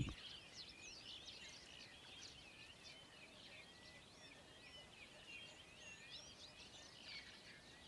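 Faint birdsong: several small birds chirping and twittering over one another without a break.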